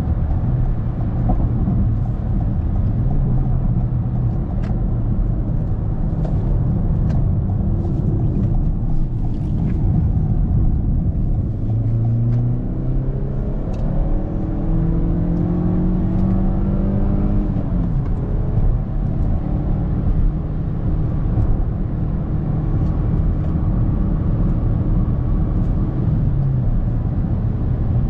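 In-cabin sound of a Toyota Corolla's 1.6 Valvematic four-cylinder petrol engine and tyre rumble while driving. The engine note climbs steadily for several seconds as the car accelerates from about twelve seconds in, then falls back and settles to a steady cruise.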